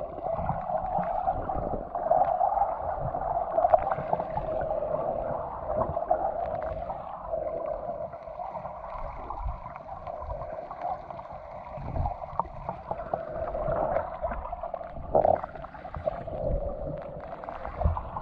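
Muffled underwater sound of snorkelling: a dull steady hum of water with gurgling and occasional knocks.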